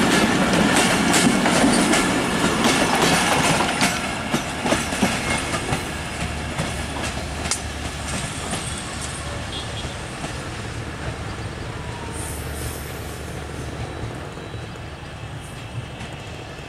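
Passenger train coaches running past close by, wheels clattering over the rail joints. The sound then fades steadily as the end of the train moves away down the track.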